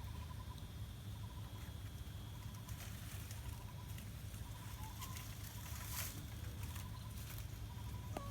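Outdoor ambience: a steady low rumble with a faint high chirping tone and a few sharp clicks or snaps, the strongest about six seconds in.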